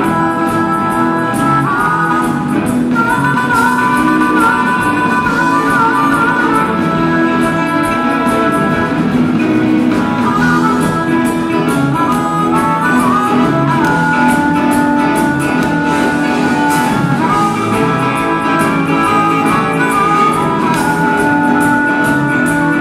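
Live rock band playing, with a harmonica lead of long, held, bending notes over the band.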